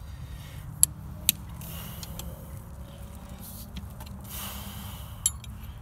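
A few sharp metallic clinks and two short scraping, rasping spells as a hand wrench works the bolts on a pump's metal casing, over a steady low rumble.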